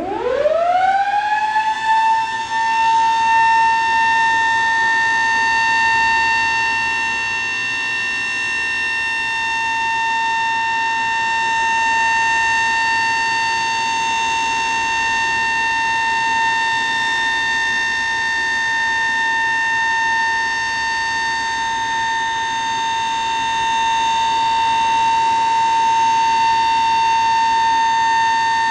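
Sterling Model M electromechanical outdoor warning siren winding up, its pitch rising steeply over about two seconds to one high tone, then held steady as a monthly test of the steady alert signal.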